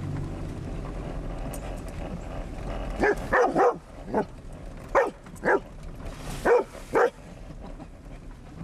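A dog barking over and over in sharp pairs of barks, starting about three seconds in, set off by water splashing up around the moving vehicle. Before the barks there is a steady rushing noise.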